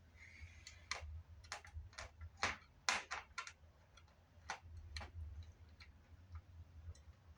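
Irregular sharp clicks and taps of small plastic parts and a tool being handled while a small mixer-recorder is taken apart, a cluster of louder clicks about three seconds in, over a steady low hum.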